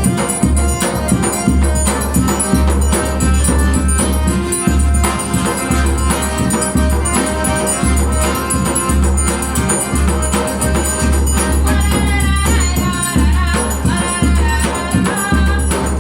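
Forró music: sanfona (piano accordion) playing the melody over a steady beat of zabumba bass drum, with triangle ringing and acoustic guitar.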